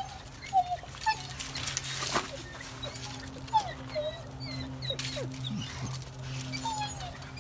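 A dog whimpering: short, high whines that slide up and down in pitch, scattered through, over a steady low hum.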